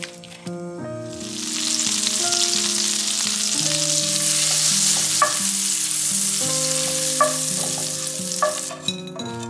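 Butter sizzling in a hot frying pan as cubes of bread are toasted in it. A wooden spatula stirs them and knocks against the pan a few times. The sizzle starts about a second in and fades near the end.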